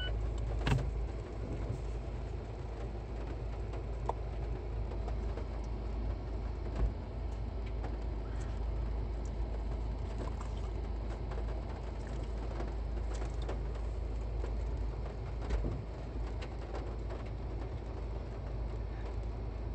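Steady low rumble of a car heard from inside the cabin, with three faint knocks spread through it.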